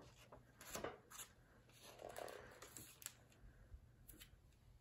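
Near silence, broken by a few faint, brief rustles and clicks of a hardcover picture book's paper pages being handled.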